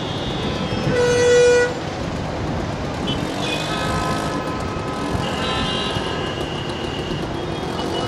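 Jammed road traffic with engines running and vehicle horns honking: one loud horn blast about a second in, lasting under a second, then several more horns overlapping later.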